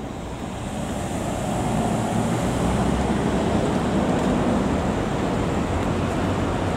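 City street traffic noise: a steady rush of passing vehicles that swells about a second and a half in and then holds.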